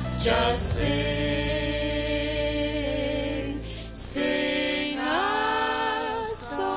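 Three singers holding long notes together over a band to close a song: one held for about three seconds, then a second that slides up partway through and is held again.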